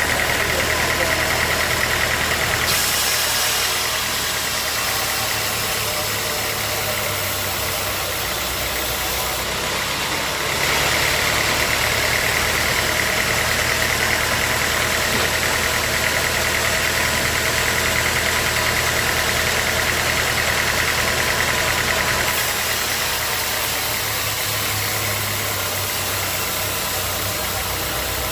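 Sawmill machinery running steadily, a motor drone with a high whine that comes in for the first few seconds and again through the middle, switching in and out abruptly.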